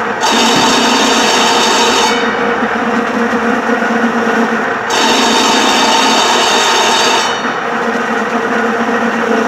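Crosscut bias-cutting machine running steadily: a fabric roll turns on its bar while a rotary knife cuts it into strips. A brighter, higher cutting noise comes in twice, at the start and again about five seconds in, each time for about two seconds.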